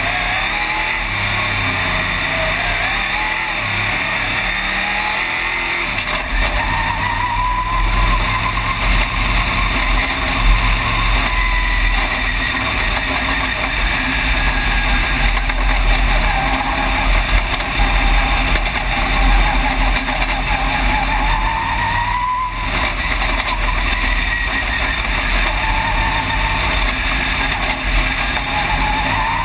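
Race car engine at racing speed, heard from inside the cockpit. It runs loud and continuous with a heavy low rumble, and its pitch climbs and falls back again and again as the car accelerates and lifts around the track, with a brief dip about two-thirds of the way through.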